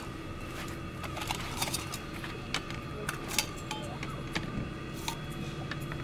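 Stainless steel camping cups clinking lightly as they are hung one by one by their wire handles on the rim of a plastic storage box: several short, scattered clicks over a steady low hum.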